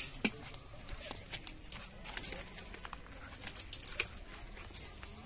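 Metal leg chains on a captive elephant clinking in scattered, irregular clicks, with a brighter jangle about three and a half seconds in.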